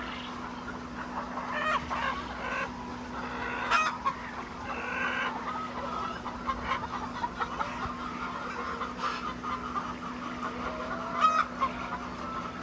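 A flock of laying hens clucking and calling over one another, with a few louder, sharper calls, over a steady low hum.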